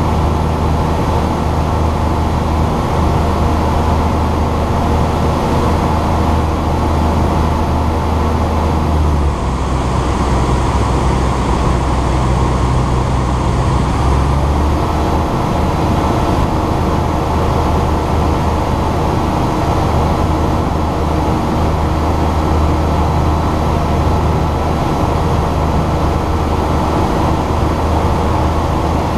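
Ikarus C42 microlight's engine and propeller droning steadily in cruise, with wind rushing over an exposed wing-mounted camera. The engine note changes for a few seconds about a third of the way in.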